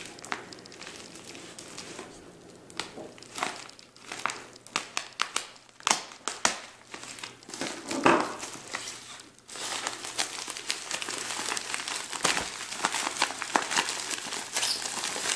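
Uline white poly bubble mailer crinkling and crackling as it is handled and worked open, with scattered sharp crackles at first and a denser, continuous rustle over the last few seconds.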